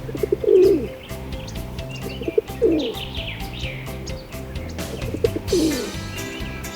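Dove cooing: three low, falling coos, one every two to three seconds, over background music, with a few higher bird chirps between them.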